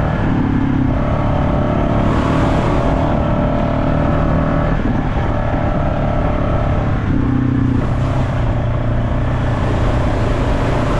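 Off-road vehicle engine running under throttle while trail riding, its pitch shifting a few times as the throttle changes.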